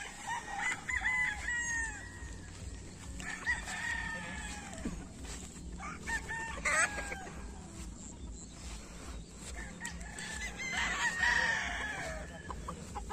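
Gamecocks (fighting roosters) crowing again and again, one call after another in several separate bouts.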